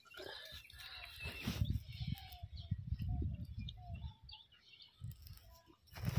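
Low rumbling and scuffing from digging by hand into a mud bank, with short bird chirps in the background through the middle.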